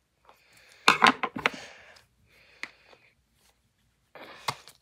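Scissors scraping and prying at the plastic shell of a toy capsule ball. A quick run of sharp clicks and crackling comes about a second in, then two shorter scraping spells.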